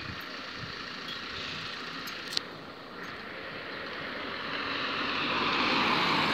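A car passing close by: its engine and tyre noise swells over the last couple of seconds and is loudest near the end. A single sharp click about halfway through.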